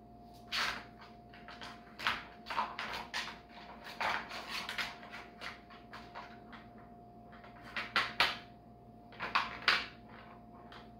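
A ball clattering and rolling in a curved plastic track toy as a cat bats at it: bursts of clicking and knocking, loudest around two, four, eight and nine and a half seconds in, over a faint steady hum.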